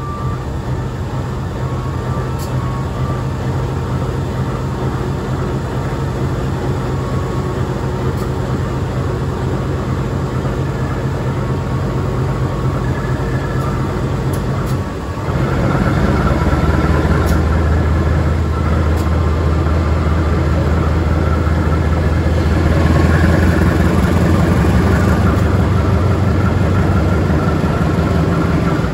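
Diesel-electric locomotive CC203 02 03 working hard up a mountain grade, its engine drone heard from the train it is hauling, with the rumble of the train underneath. About halfway through the sound dips for a moment and then comes back louder, with a deeper steady drone.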